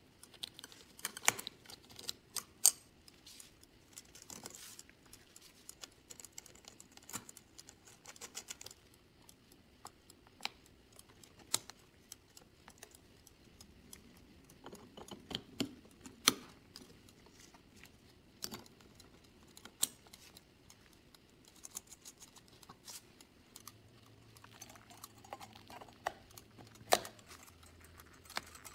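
Small metal parts of a 1960s Duncan parking meter mechanism clicking and tapping as they are fitted together by hand, with pliers at work on the springs near the end. The clicks come irregularly, singly and in short clusters.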